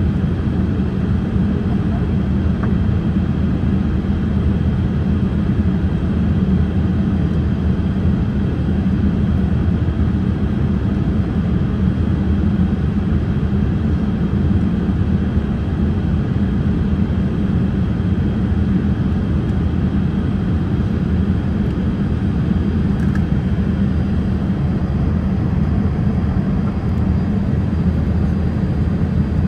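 Steady cabin noise inside a Boeing 787-8 airliner: an even, low rush of engines and airflow that holds level throughout.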